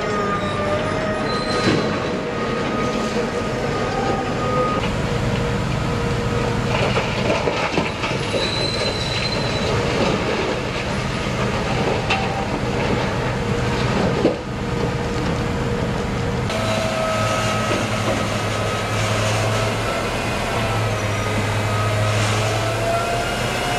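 Giant BelAZ diesel-electric mining haul truck running and moving: a low engine hum under a steady high whine from its electric drive, the whine wavering and rising slightly near the end. A single sharp knock about two-thirds of the way through.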